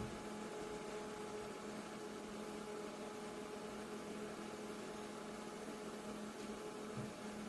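Mini evaporative air cooler's small fan motor running steadily, a low hum with an even hiss of moving air, with a faint click at the start and another near the end.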